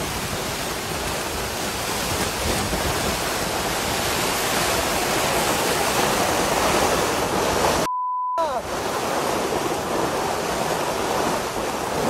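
Heavy rain and gusting wind battering a tent in a storm, a dense, unbroken rush of rain and wind noise. A short censor bleep cuts in about eight seconds in.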